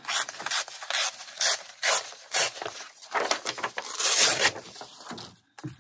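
Patterned craft paper torn by hand in a series of short rasping rips, with paper rustling between them and one longer tear near the end.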